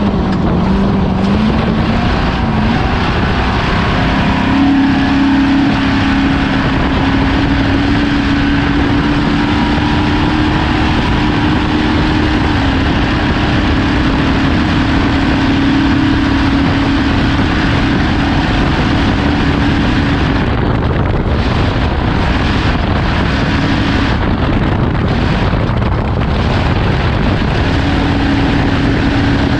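Off-road race vehicle's engine running at a steady pitch under heavy wind noise and ground rumble on the microphone; the engine note fades under the noise about two-thirds of the way through and comes back near the end.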